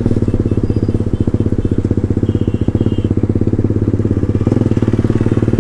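Motorcycle engine running as the bike is ridden at low speed, a steady stream of rapid, even firing pulses.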